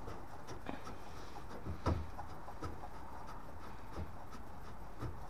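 Light clicks and knocks from hands working on the fittings of a combi boiler's brass diverter valve while a nut and washer are refitted, five or so scattered over a few seconds with the loudest about two seconds in, over a steady low background hiss.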